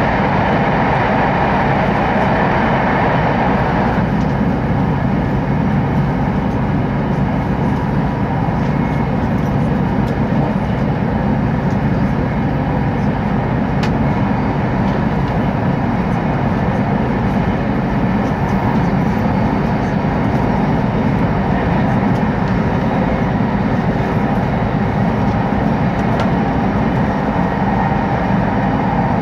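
Steady rumble and rush of an E2 series shinkansen running at speed, heard from inside the passenger car. The middle of the noise eases about four seconds in, as the train comes out of a tunnel onto open track.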